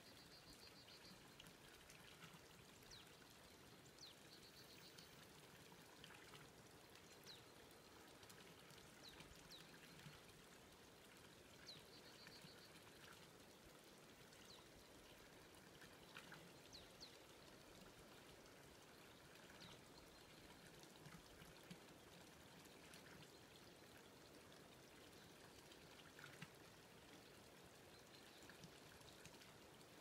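Near silence: quiet forest ambience, a faint steady hiss with scattered faint high chirps and a few short trills.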